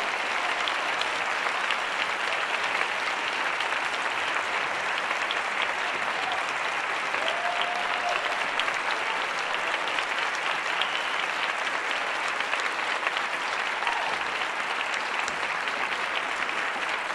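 Concert audience applauding: dense, steady clapping at the end of a performance.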